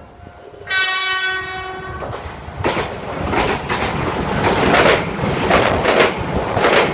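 A Japanese train sounds its horn once for about a second, then passes close by with a loud rumble and a rhythmic clickety-clack of its wheels over the rail joints, about two knocks a second.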